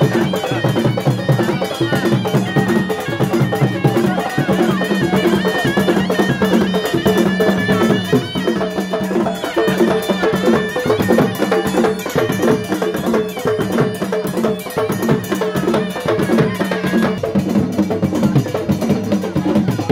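Baloch lewa dance music: a dhol drum beaten in a fast, steady rhythm, with a melody instrument played over it.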